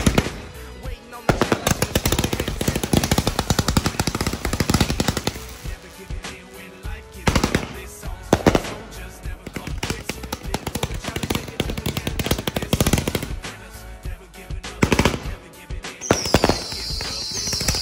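500-gram consumer aerial repeater cake (Outlaw Pyrotechnics Venom, 192 shots) firing: rapid volleys of launch thumps and popping breaks, densest a second or two in, then single shots and shorter clusters. A higher crackling hiss sets in near the end.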